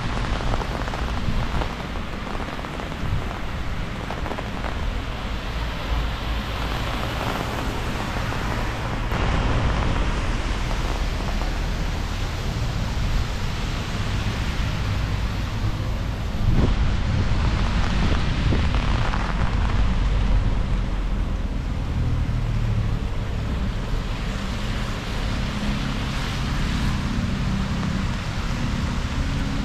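Wind buffeting the microphone in low gusty rumbles, over a steady hiss of falling rain.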